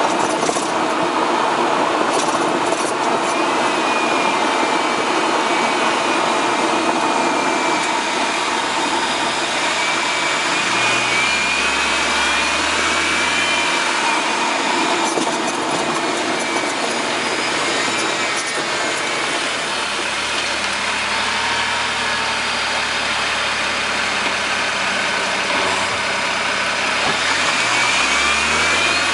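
Road and tyre noise with the engine running, heard from the front left wheel arch of a BMW 1 Series on the move, the engine note rising and falling twice. A few sharp clicks stand out; the owner hears a clicking from this wheel when turning right.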